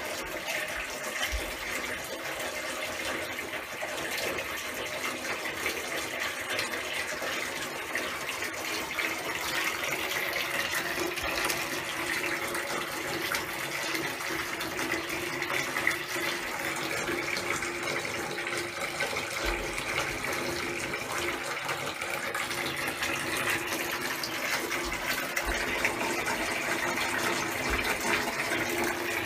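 Hot water running steadily from a bath tap into a filling bathtub, an even splashing rush.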